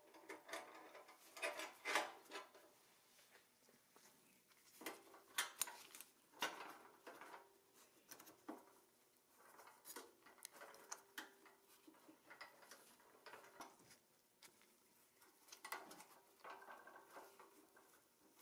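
Scattered light clicks, taps and scrapes of small toy parts being handled as a rubber-tyred wheel and its metal hubcap are pushed onto the axle of a restored Tonka toy crane. The loudest clicks come about two seconds in and again around five to six and a half seconds in.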